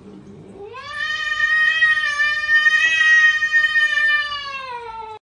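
A pet's single long howling call: it rises in pitch at the start, holds steady for about four seconds, then drops and cuts off suddenly.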